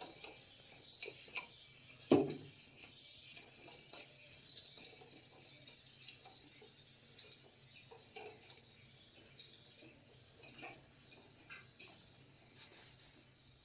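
Quiet room background: a steady hiss with scattered faint taps and clicks, and one sharper knock about two seconds in.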